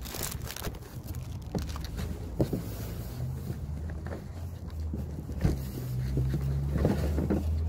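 Handling noise from a phone camera held against plastic packaging: rubbing and a few scattered knocks over a steady low rumble.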